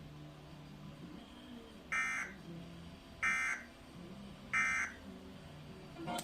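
Three short bursts of Emergency Alert System SAME data tones, a harsh buzzy warble, a little over a second apart: the end-of-message code that closes the warning.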